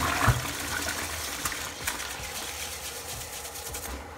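Toilet flush water rushing into the bowl while a toilet brush is swished and rinsed through it, with a dull knock just after the start; the water noise fades gradually toward a steadier running hiss.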